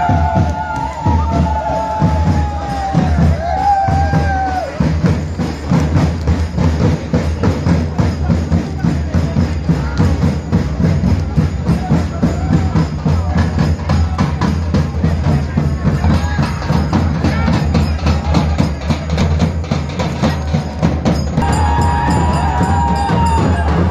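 Dhol drums and other hand percussion beaten fast and without a break, a dense, steady drumming. A high, wavering tone rides over the drumming during the first few seconds and comes back near the end.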